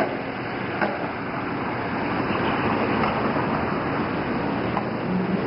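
Steady outdoor background noise, an even rumble and hiss in the manner of street traffic, with a faint click about a second in and another near the end.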